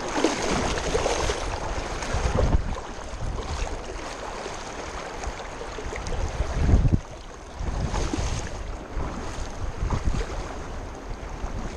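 River water splashing and rushing, with wind buffeting the microphone in irregular low surges.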